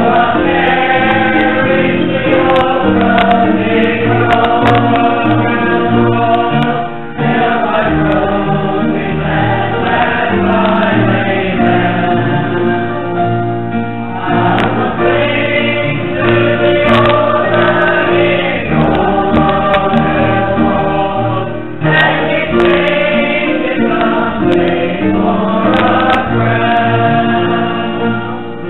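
A group of voices singing a hymn with instrumental accompaniment, the melody moving in phrases with a short breath between them about every seven seconds.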